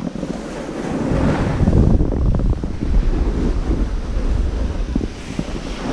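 Wind buffeting the microphone: a rough, rumbling rush that swells and fades.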